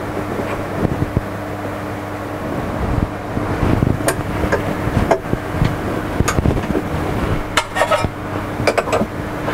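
Metal clicks and clinks as a 19 mm four-flute end mill is fitted and tightened in the spindle collet of a CNC-converted Sieg X2 mini mill. The clicks come more often in the second half, over a steady low machine hum.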